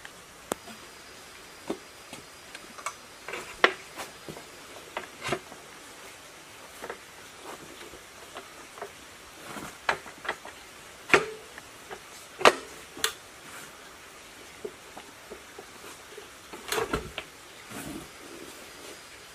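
Scattered sharp metallic clicks, clinks and knocks of parts being handled and fitted on a diesel engine's gear housing during reassembly. The louder knocks ring briefly.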